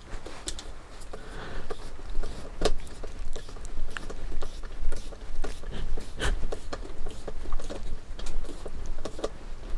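Irregular small clicks and taps of a screwdriver and hands working on the plastic front bulkhead of a Tamiya MF-01X RC car chassis, driving in the screws that hold the front suspension arms.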